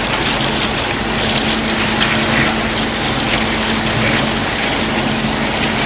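Small electric motor running steadily with a constant hum, driving the model concrete plant's machinery.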